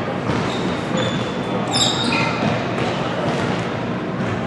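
A basketball bouncing on a hardwood gym floor, with a few short, high sneaker squeaks about a second or two in, all echoing in a large gymnasium.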